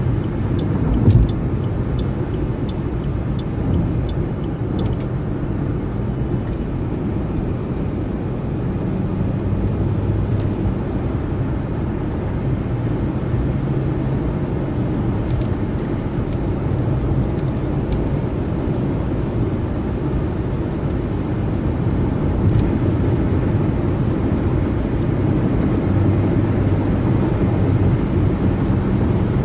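Steady low rumble of a car driving at freeway speed: tyre and engine noise with a faint hum, and one short thump about a second in.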